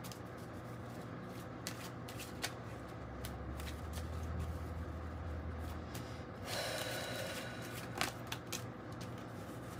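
A deck of cards being shuffled by hand: soft taps and slides, with a brief louder rustle about two-thirds of the way through.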